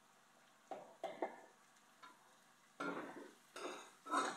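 A spoon stirring food in a metal wok: a couple of light knocks about a second in, then a run of scraping strokes roughly every half second from about three seconds in.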